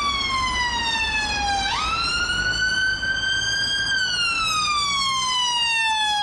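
UK NHS ambulance siren sounding a slow wail. The pitch slides slowly down, jumps back up just under two seconds in, climbs, then slides down again near the end, over a low traffic rumble.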